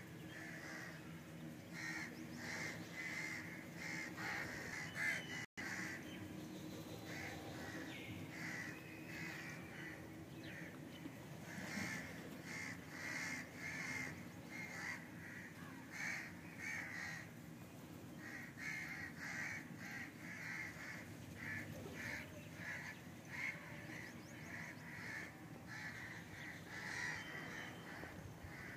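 Crows cawing over and over, many short calls in quick runs, with a low steady hum underneath.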